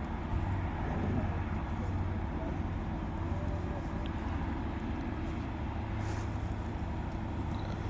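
A large crane's engine running steadily, a low even drone.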